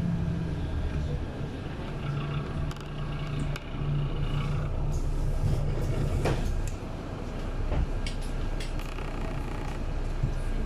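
Inside a vehicle driving on a wet road: a steady low engine hum with tyre and road noise, broken by a few sharp clicks and rattles. The hum is strongest in the first half.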